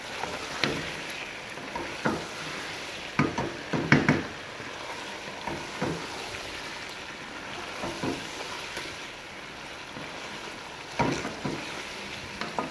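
Chicken pieces frying in oil in a nonstick pot, with a steady sizzle while they brown. A wooden spoon stirs them, scraping and knocking against the pot every second or two, loudest about four seconds in.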